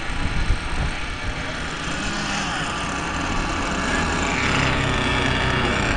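Radio-controlled racing truggies running on a dirt track, their small motors buzzing and whining, with a rise in pitch about four seconds in, over a low rumble.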